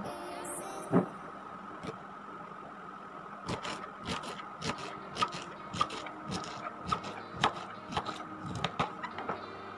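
Knife chopping peeled pineapple on a cutting board: one sharp knock about a second in, then a run of irregular chopping knocks, roughly two a second, from about three and a half seconds in until near the end.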